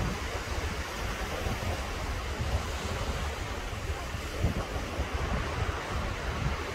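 Small waves breaking and washing up on a sandy beach, a steady surf hiss, with wind rumbling on the microphone underneath.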